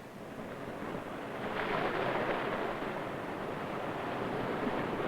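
Ocean surf: a steady rush of waves washing ashore, swelling louder about a second and a half in and again near the end.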